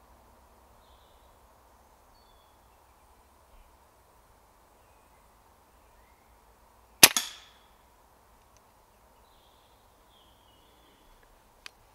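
A single shot from a BRK Brocock Pathfinder PCP air rifle about seven seconds in: one sharp crack with a brief tail, taking a grey squirrel on a feeder.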